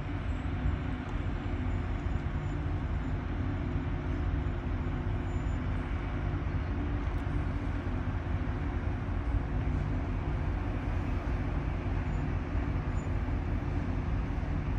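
Steady low mechanical hum made of several constant low tones over a noisy rumble: a large engine or machinery running without change.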